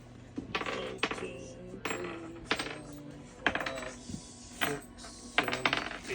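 Metal bed-kit parts clinking and clattering as they are handled: about eight sharp clanks at uneven intervals, several with a short metallic ring.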